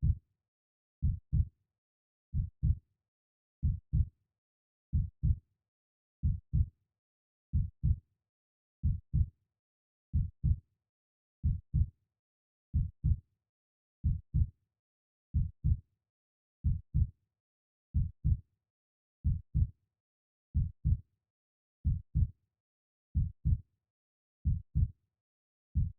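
Heartbeat sound: a slow, steady lub-dub, each beat a pair of short low thumps, about one pair every 1.3 seconds, with silence between.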